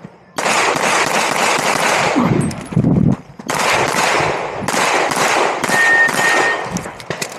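Rapid strings of 9mm pistol shots from a Glock 47, starting about half a second in, with short breaks between strings.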